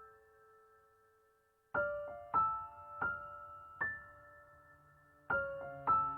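Background music: a slow, sparse piano melody of single struck notes and chords left to ring and fade, with a quiet pause in the first second and a half.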